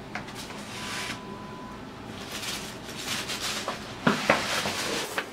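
Stiff paper carrier bag rustling and crinkling as it is opened and rummaged through by hand, with a louder burst of sharp crackles about four seconds in.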